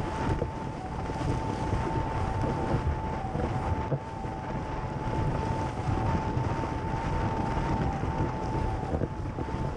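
Wind buffeting the microphone of a camera mounted on a Fanatic Falcon slalom windsurf board planing at speed, with water rushing and spraying under the hull. A steady high-pitched whine runs under the noise.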